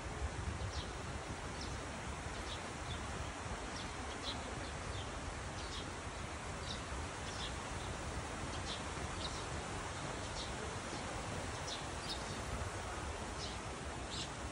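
Small birds chirping in short, high, scattered calls over a steady outdoor hiss.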